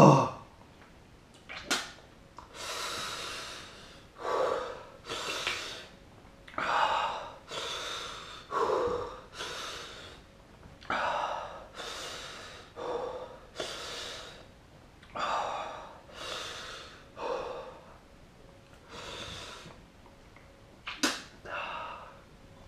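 A man breathing hard through his mouth in repeated gasping breaths, about one a second, from the burn of a superhot chilli pepper.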